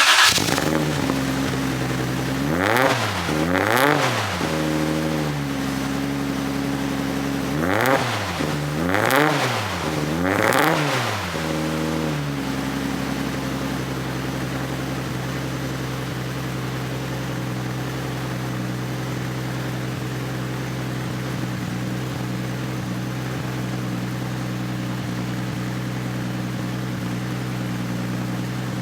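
Lexus SC300's 2JZ-GE straight-six, just started from cold, revved in short blips: two at first, then three more several seconds later. After that it settles into a steady fast cold idle as it warms up.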